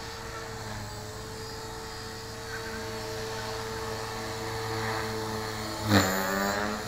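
Electric Tarot 450-size RC helicopter in flight: a steady rotor and motor whine that swells briefly louder, with its pitch sweeping up, about six seconds in.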